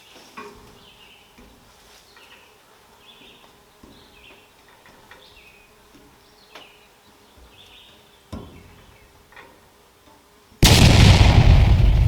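Faint, scattered high chirps and a few light clicks. Then, about ten seconds in, a sudden loud blast of rumbling noise starts abruptly and slowly dies away.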